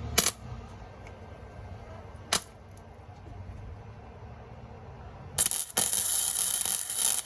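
Electric welder arc: two brief strikes, then a sustained weld starting about five seconds in, with one short break, as a nut is welded onto a broken exhaust manifold stud so the stud can be backed out.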